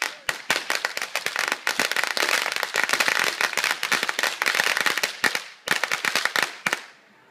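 A string of firecrackers going off on a performer's body: a rapid, dense run of sharp cracks that thins out into a few last pops and stops abruptly near the end.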